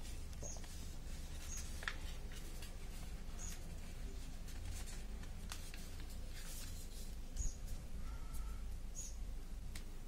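Origami paper rustling and crinkling as hands fold and crease it against a hard floor, with a louder crinkle about two-thirds of the way through. Short high chirps sound every second or two.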